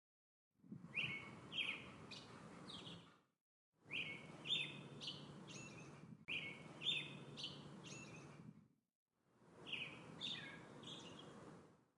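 Songbird singing a short phrase of a few quick chirps, the same phrase heard four times as a looped recording. Each repeat fades in and out over a low background hiss, with dead silence between some of them.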